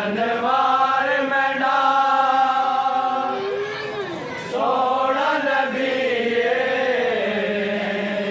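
Men chanting a devotional recitation in long, drawn-out held notes: one phrase, a short break with a sliding note about four seconds in, then a second phrase.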